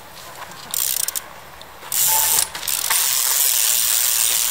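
Trial bike's rear freewheel hub ratcheting: a short spell of rapid clicking about a second in, then from about two seconds in a loud, continuous high buzz of fast clicks as the wheel turns without pedalling.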